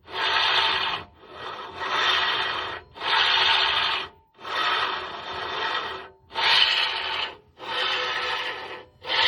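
Steering rack and right tie rod of a VW Passat CC giving a harsh rasping, grinding rub with each turn as the steering wheel is turned back and forth, in about seven strokes of roughly a second each. The owner links the noise to driving through swamps and traces it to the right tie rod and tie-rod end.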